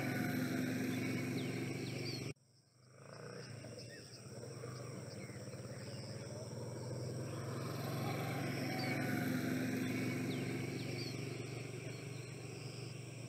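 Small birds chirping and whistling in short calls over a steady low hum in an outdoor morning field recording. The sound cuts out about two seconds in and fades back up.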